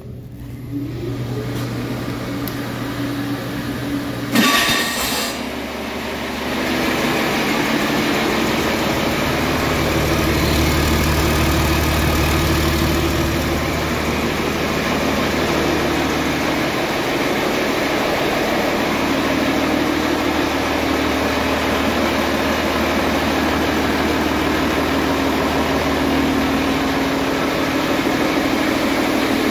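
Rebuilt International DT466C inline-six turbodiesel being cranked on its starter, firing with a sharp loud burst about four seconds in, then settling into a steady idle.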